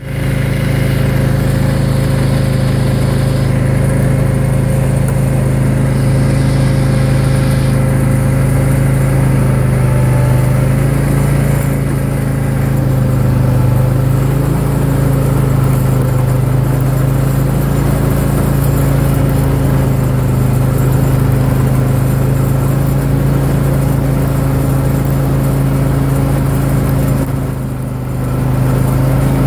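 John Deere X540 lawn tractor's engine running steadily at a constant speed as the tractor pushes snow with a front plow blade. The level dips briefly near the end, then recovers.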